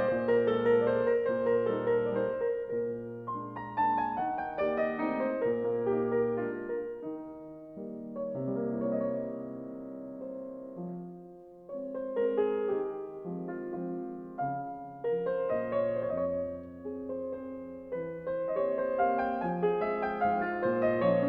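Slow piano music, with a brief soft passage about halfway through.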